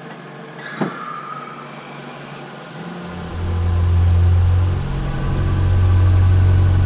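Air-suspension compressor (Air Lift 3P system) kicking on about three seconds in and running with a steady low drone while the car is aired up. A brief hiss of air comes just before it.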